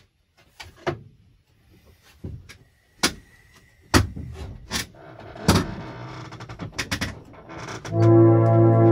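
Clicks and knocks of a player settling at a harmonium (reed organ), then a growing hiss with faint reed tones from about four seconds in as it is pumped, and near the end a loud sustained chord starts on the harmonium, the loudest sound.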